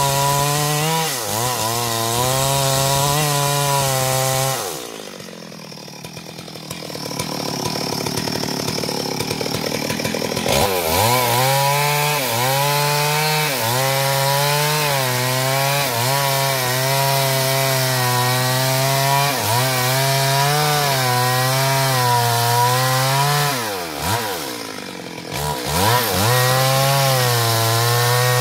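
Stihl MS 382 two-stroke chainsaw cutting wood at high revs, its pitch wavering under load. About five seconds in the revs drop away for several seconds, then it is throttled back up to full speed and cuts on, with another short dip near the end.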